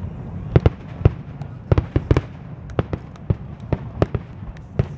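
Aerial fireworks display with shells bursting: about a dozen sharp bangs at irregular intervals, some in quick pairs, over a steady low rumble.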